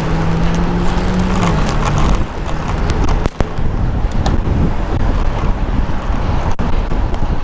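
City traffic noise with wind buffeting the microphone of a moving bicycle. A steady low drone from a nearby motor vehicle fades out about two seconds in, and a couple of sharp knocks come later.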